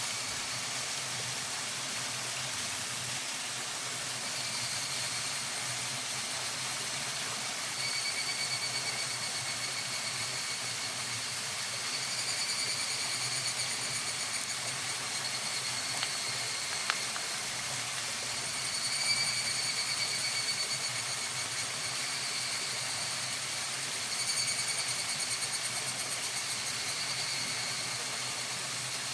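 Higurashi (evening cicadas) singing in repeated pulsing phrases, each lasting a few seconds, over a steady high hiss. There is a single sharp click about two-thirds of the way through.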